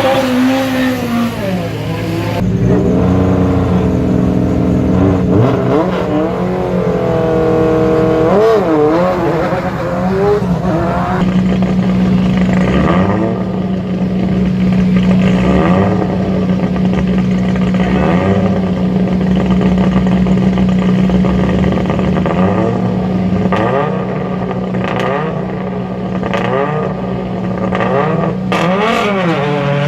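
Rally car engine revved in quick up-and-down blips, then held at a steady pitch for about ten seconds, then revved again near the end.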